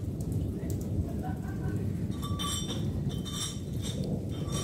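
Heavy thunderstorm rain with a steady low rumble, and a few clear ringing plinks of drops striking something hard, about once a second in the second half.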